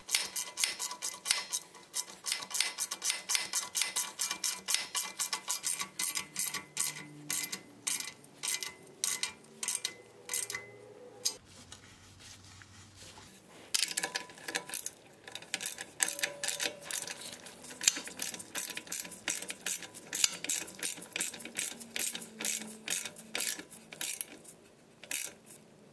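Socket ratchet clicking in quick, steady runs as it tightens exhaust clamp bolts, with a pause of about two seconds halfway through.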